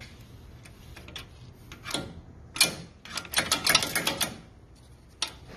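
Metal clicking and knocking from a car's front suspension parts as a gloved hand works at them: a few separate sharp clicks, then a quick run of them a little past halfway, and one more near the end.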